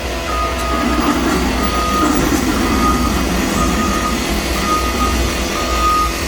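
A heavy construction vehicle's reversing alarm beeping about once a second at one steady pitch, six beeps in all, over the low running of its diesel engine.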